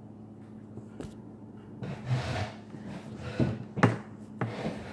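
Objects being handled close to the microphone: about five light knocks and clacks with a short rubbing noise, over a low steady hum.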